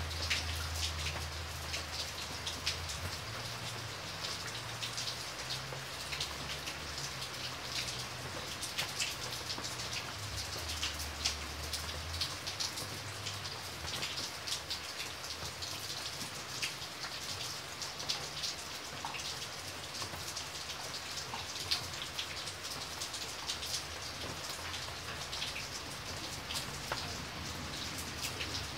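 Steady rain falling, with dense drop ticks on hard surfaces over an even hiss. A faint low rumble underneath fades out about twelve seconds in.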